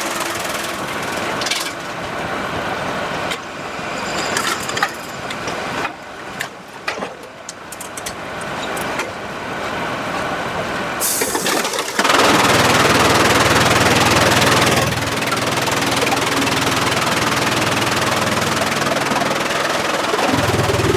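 Sawmill machinery running, with scattered knocks and clatter of wood. About twelve seconds in, a louder steady noise starts suddenly; it eases a little a few seconds later and carries on.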